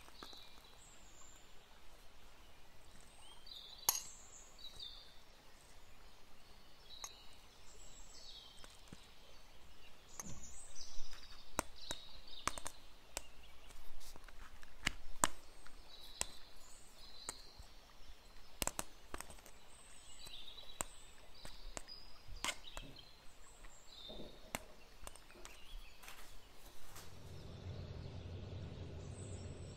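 Small birds chirping repeatedly in the background, with scattered sharp clicks and taps. A low hum comes in near the end.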